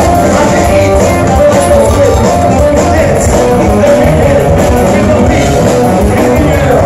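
Punk rock band playing live at full volume: electric guitars, bass and drums, with lead vocals sung into the microphone over them.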